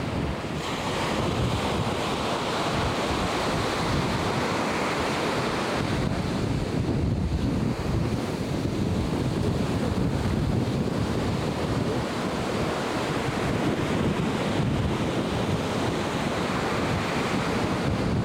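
Ocean surf washing and breaking, with wind blowing across the microphone.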